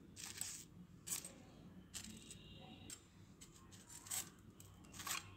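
A handful of short, faint clicks and light scrapes of metal kitchen tongs against a wire-mesh frying strainer, as fried fish fingers are picked off it and set down on tissue paper.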